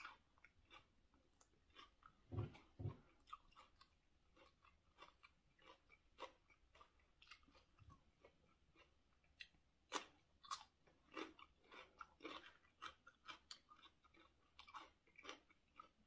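Quiet close-up chewing: a person eating a raw seafood salad with fresh cucumber, with irregular wet mouth clicks and soft crunches.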